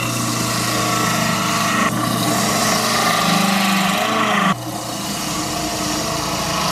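Stainless-steel electric citrus juicer's motor running under load, with a steady hum and a rasping whir, as orange halves are pressed onto its spinning reamer. The sound changes about two seconds in and gets a little quieter about four and a half seconds in.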